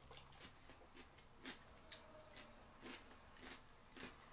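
Faint, irregular crunches of raw cucumber being chewed, roughly two a second, against a quiet room.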